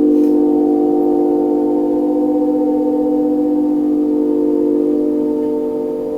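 A loud, steady hum of several held low tones sounding together, easing off slightly near the end.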